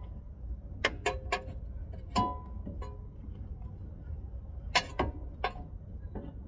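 Irregular sharp metallic clinks and taps of hand tools against steering parts, about eight in all, a few ringing briefly, over a low steady rumble.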